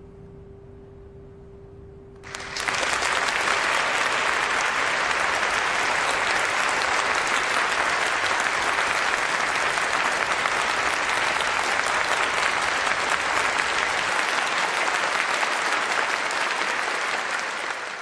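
Audience applauding, breaking out suddenly about two seconds in and holding steady, then fading near the end. Before it there is only a faint steady tone.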